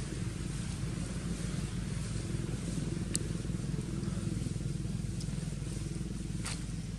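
Steady low rumble of an engine running nearby, with two brief sharp clicks, about three seconds in and near the end.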